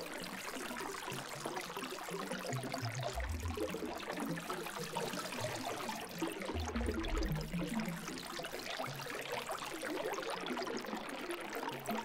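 Paper tissue rubbing and scrubbing over the plastic panel of a MIDI controller, a steady rustling hiss, with two low bumps of handling about three and six and a half seconds in.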